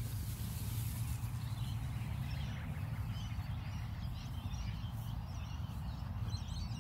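Open-air background: a steady low rumble with faint high bird chirps coming and going from about two seconds in.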